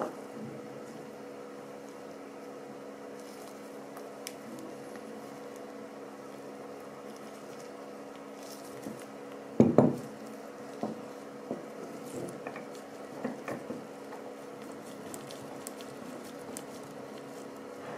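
Small clicks and taps of a steel shaft and plastic parts being handled and fitted together on a wooden workbench, with one loud knock about halfway through, over a steady low hum.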